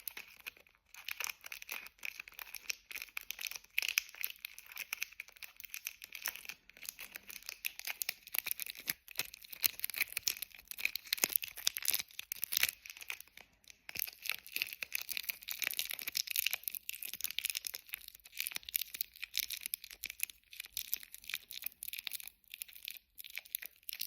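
Close-miked adhesive tape being peeled and pressed, a dense run of small sticky crackles and tearing clicks.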